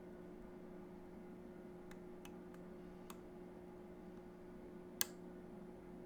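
A few faint clicks of picking tools working inside a DOM Diamant lock, then one sharper, louder click near the end, over a steady low hum.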